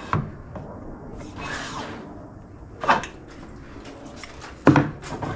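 Handling noise of a spirit level and chisel against a timber window frame: three sharp knocks, the loudest near the end, with scraping and small clicks between them.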